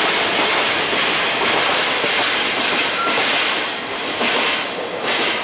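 Container freight wagons rolling away along the rails, the wheel-and-rail clatter thinning out over the last second or so. A short high squeal comes about three seconds in.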